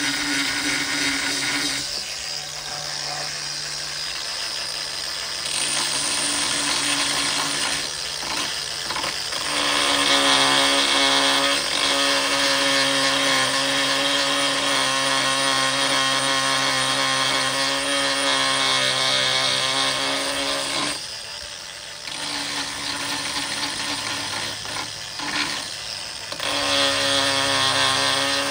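Cordless angle grinder with a 3.5-inch diamond grinding wheel running steadily and grinding down the top of a dull carbide forestry-mulcher tooth to sharpen it. The grinding is heaviest from about ten to twenty-one seconds in, eases off for a few seconds, then picks up again near the end.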